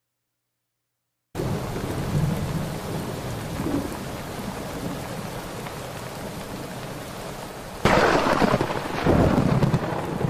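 Steady rain starting suddenly about a second and a half in, with a loud clap of thunder about eight seconds in that rumbles on to the end.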